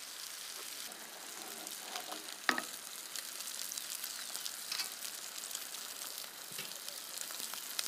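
Food sizzling steadily as it fries in pans. One sharp knock comes about two and a half seconds in, and a few lighter clicks are scattered through.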